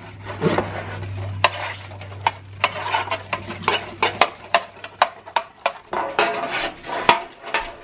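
Metal spoon scraping and clicking against a metal 9x13 baking pan as butter is spread over its bottom: a quick, uneven run of scrapes and taps.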